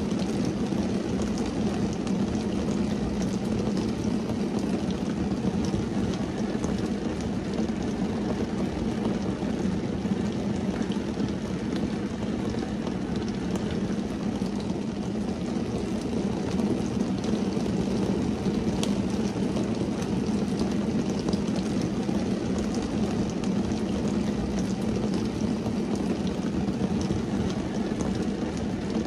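Steady rain falling on a car's windshield and roof, heard from inside the cabin: an even, unbroken patter with most of its weight low.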